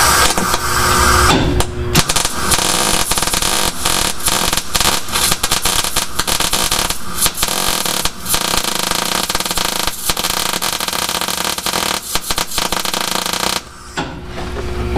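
Wire-feed welder arc crackling and sizzling as wire is laid down to weld a nut onto a broken-off seat bolt stud in a steel floor pan, building the nut into a new bolt head. The crackle starts about two seconds in and breaks off briefly near the end.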